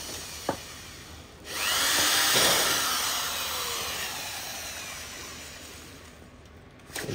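Power drill drilling out a pop rivet in a metal screen-door frame. The motor starts suddenly about a second and a half in with a rising whine, then runs on as the bit works through the rivet, slowly fading. It starts again just before the end.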